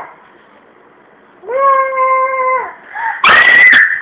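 A young child's voice: a held wailing cry on one steady pitch for about a second, then a loud shrill scream starting about three seconds in.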